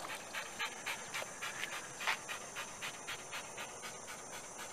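A dog panting quickly and steadily, about four or five breaths a second, worn out from retrieving a tennis ball over and over in the heat.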